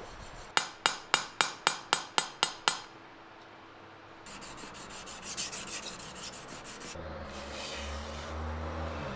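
A quick run of about nine sharp taps, then a stretch of rhythmic high-pitched scratching on steel, then a soft hiss as a kitchen knife blade slices through a hanging strip of paper.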